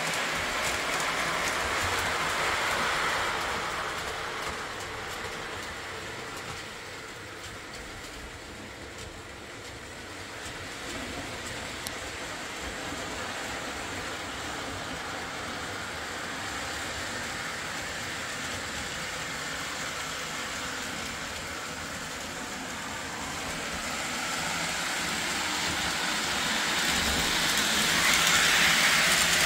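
Lionel Reading model locomotive pulling MTH Rail King streamliner passenger cars around a layout: a steady rattle and rumble of wheels on track with motor hum. The sound is louder as the train passes close in the first few seconds and again near the end, and fainter in between as it runs on the far side of the loop.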